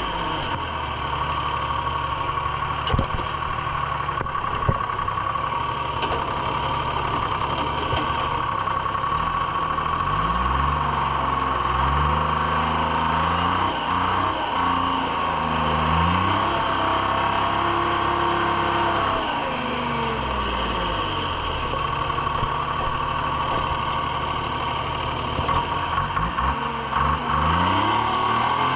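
Treefarmer cable skidder's diesel engine running as the machine drives, its pitch rising and falling several times as the throttle is worked. A couple of sharp knocks about three and five seconds in.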